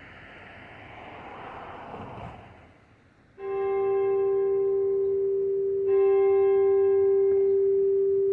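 A church bell tolling: struck about three and a half seconds in and again about six seconds in, each stroke ringing on with a strong steady hum and higher overtones. Before the first stroke a rush of noise rises and fades away.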